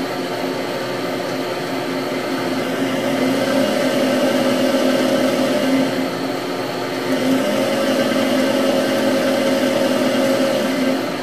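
Denford Novamill benchtop CNC mill spindle motor running with a steady hum, its speed and pitch shifting up and down as the spindle speed override pot is turned.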